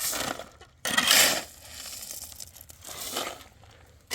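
Several rough, gritty scraping and crunching strokes of hard building material being worked by hand. The loudest comes about a second in, and a weaker one follows around three seconds.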